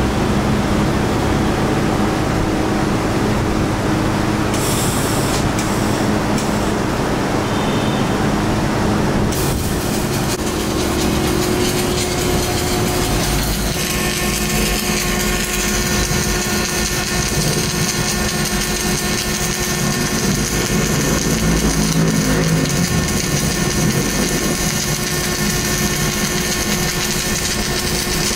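Steady low workshop hum, then about a third of the way in a MIG (gas metal arc) welding arc strikes. It runs on as a continuous crackling hiss to the end.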